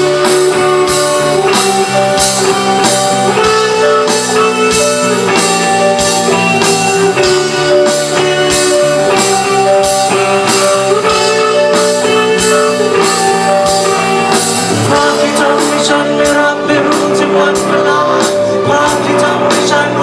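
Live rock band playing: electric guitars, keyboard and a drum kit, amplified through stage speakers, with a steady drumbeat.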